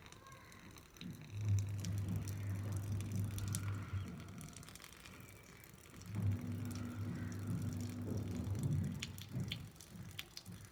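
Warm salt water from a neti pot trickling and dripping out of a nostril during a nasal rinse, heard as scattered small drips and splashes. A low hum comes and goes under it.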